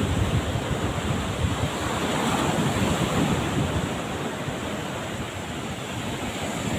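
Rough surf breaking and washing up a sandy beach in strong waves, with wind buffeting the microphone.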